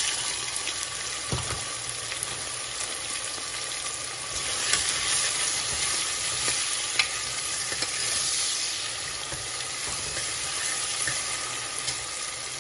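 Chopped onions frying in hot oil with cumin seeds in a pressure cooker, a steady sizzle. A metal spoon stirring them clicks and scrapes against the pot a few times.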